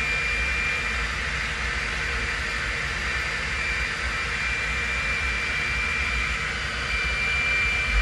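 Handheld hair dryer running on a steady setting: a constant rush of blown air with a thin high whine that fades in and out.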